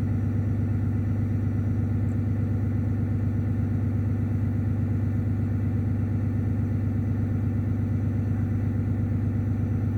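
Cummins diesel engine idling steadily, with an even, fast pulsing beat.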